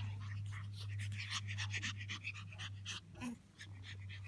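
Pug puppies panting in quick, breathy puffs as they play-wrestle, over a steady low hum that drops out briefly about three seconds in.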